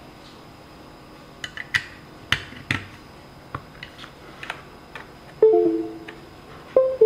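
Light plastic clicks and knocks from handling the keyboard and its cable, then plucked-string music starting about five seconds in, with notes ringing out and fading.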